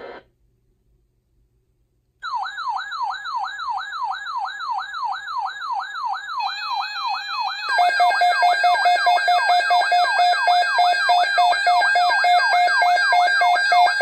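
Several NOAA weather alert radios sounding their alarms for a tornado watch. One starts about two seconds in with a fast falling siren-like sweep, about three a second. Others join with beeping tones a few seconds later, and a loud steady pulsed beep takes over around the eight-second mark.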